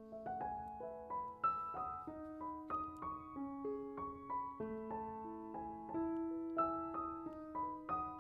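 Soft piano music: a slow melody of notes over held chords, each note fading after it is struck.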